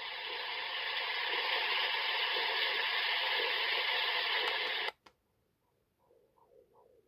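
A plush sleep-aid lamb toy's small speaker playing white noise, a steady hiss that cuts off with a click about five seconds in. About a second later its heartbeat mode starts: soft pulses coming in pairs.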